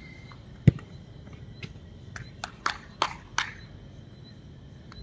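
A football kicked hard, one loud thump about a second in, followed by a quick run of sharper smacks and knocks from the play.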